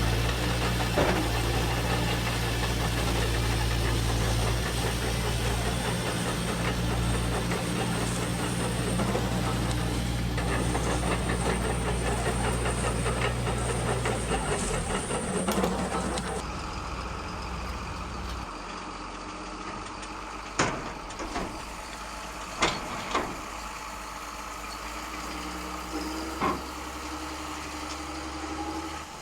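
Radio-controlled model construction machines running: a steady motor hum that drops away about halfway through, followed by a few sharp knocks and clatters.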